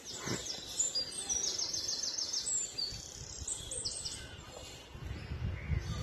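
Small birds chirping at a high pitch over steady outdoor background noise, with a quick even trill of about ten notes around a second and a half in. A low rumble rises near the end.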